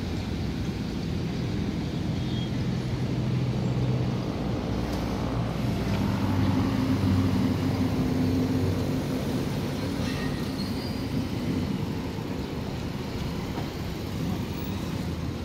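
Small car engine running at low speed as the car manoeuvres, with a steady low rumble. Its note rises a little about six seconds in and eases off again a few seconds later.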